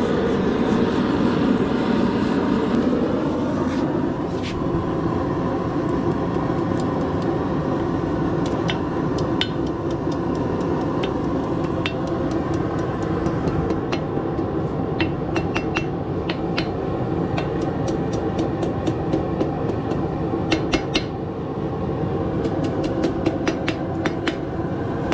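A forge runs with a steady drone while a hammer strikes hot steel on an anvil: light blows, single at first, then quick runs of several a second in the second half, as the thin curlicue end of a forged hook is worked.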